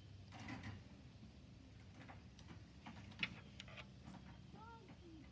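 Faint, scattered small clicks and light handling sounds from working the lace with scissors and a lighter, the sharpest click about three seconds in.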